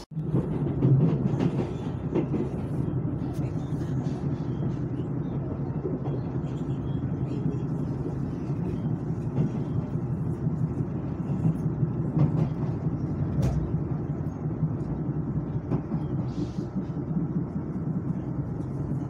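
Steady rumble of a Chu-Kuang Express passenger coach running along the track, heard from inside the carriage, with a few sharp clicks.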